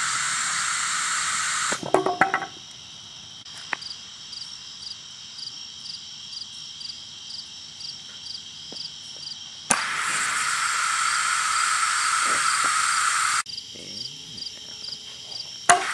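Compressed air hissing steadily. It cuts off with a few clicks about two seconds in, comes back about ten seconds in for nearly four seconds, stops suddenly, and starts again right at the end. Crickets chirp steadily in the gaps.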